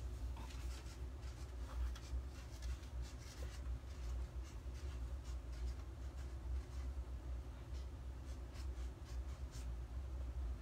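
Faint, scattered scratching and small ticks of paper and craft materials being handled on a desk, over a steady low hum.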